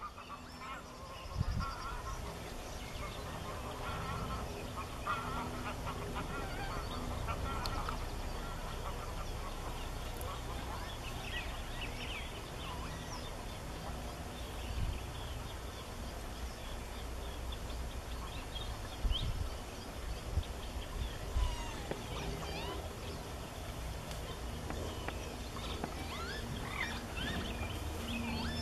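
Wetland bird calls: many short chirps and call notes from several birds, thickest in the second half. Underneath is a steady low rumble, with a few sharp thumps.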